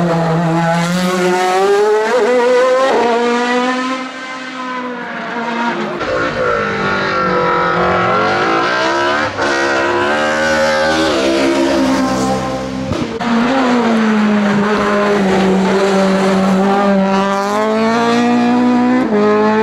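Hillclimb race car engines at full throttle, one car after another taking hairpin bends, the pitch climbing and falling sharply with gear changes and braking. First comes an open-cockpit sports prototype, then saloon cars.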